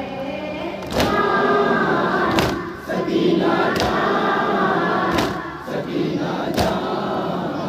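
A noha (mourning lament) chanted by a boy through a microphone, with a group of men singing along. The crowd beats its chests (matam) together about every one and a half seconds, five strikes in all.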